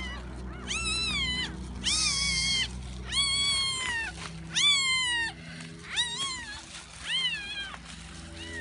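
Young puppy crying: a series of about seven high-pitched, mewing cries, each rising and then falling in pitch, with a harsher squeal about two seconds in.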